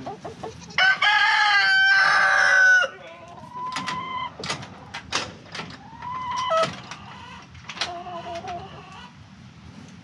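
A rooster crows once, a loud held call of about two seconds starting about a second in, dropping at the end. Chickens cluck and call in shorter bursts through the rest.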